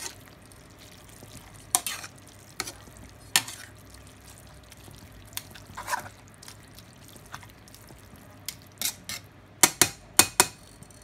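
Metal tongs tossing spaghetti in meat sauce, knocking and clinking against the pan at irregular moments, with a quick run of loud knocks near the end. A faint sizzle of the sauce runs underneath.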